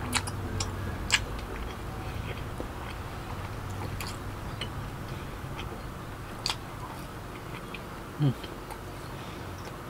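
Close-miked chewing and biting of food, with scattered irregular wet mouth clicks. A brief low sound rising in pitch comes about eight seconds in.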